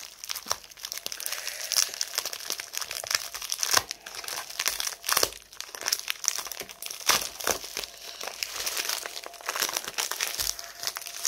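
Plastic packaging crinkling and rustling as it is handled and unwrapped by hand, in a steady run of irregular crackles with a few sharper cracks midway.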